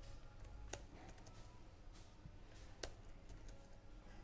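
Faint typing on a computer keyboard: a few scattered key clicks, two louder than the rest, over a low steady hum.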